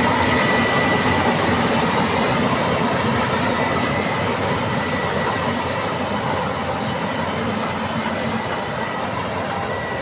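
Combine harvester running: steady engine and machinery noise with a thin high whine, slowly growing quieter.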